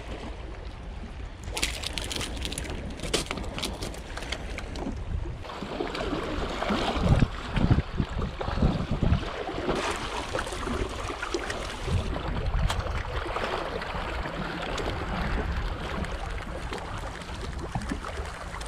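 Wind on the microphone and sea washing against a rocky shore, with a few clicks early on and louder knocks and gusts in the middle.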